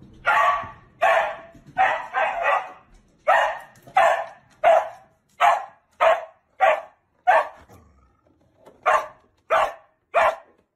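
Dog barking repeatedly, about fourteen short, sharp barks at a steady pace of roughly one every two-thirds of a second, with one pause of about a second around eight seconds in.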